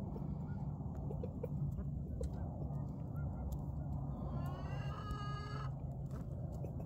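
A rooster crows once, about four seconds in: a single call of about a second and a half that rises in pitch and then holds. A steady low rumble runs underneath.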